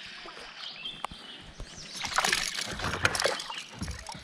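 Water splashing beside a kayak, loudest about two to three and a half seconds in, as a hooked smallmouth bass is brought in at the surface.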